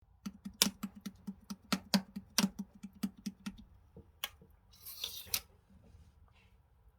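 Homemade slime being pressed and squeezed by hand, giving a quick run of sharp clicks and pops, about five a second. The clicks stop after about three and a half seconds; a single pop and a short crackling squish follow.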